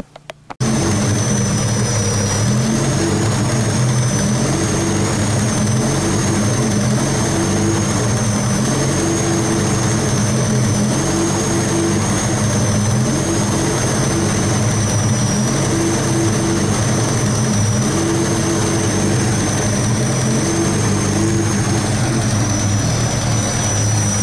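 Chevrolet Opala engine running steadily, with a thin high whistle wavering above it; the sound cuts in abruptly about half a second in.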